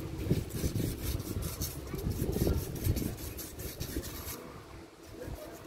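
Fine sandpaper rubbed in quick back-and-forth strokes on a brake caliper guide pin, scouring off old grease and dirt. The strokes stop briefly about four and a half seconds in, then start again near the end.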